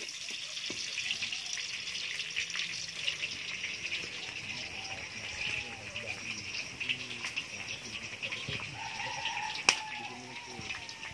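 Garlic and onion frying in oil in a steel wok over a wood fire: a steady sizzling hiss with scattered crackles, and one sharp crack a little before the end.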